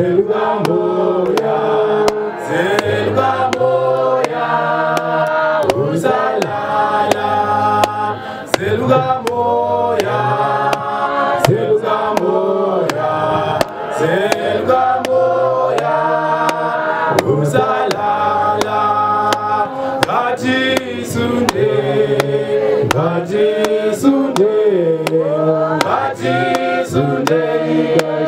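Male church choir singing in harmony, a lead voice on a handheld microphone with the others joining through a stand microphone, in held notes that rise and fall.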